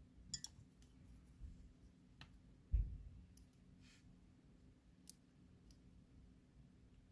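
Faint scattered clicks and ticks of a steel lock pick and tension wrench working inside a Master Lock Pro Series 6850 padlock's keyway as the pins are picked, with one dull low thump a little under three seconds in.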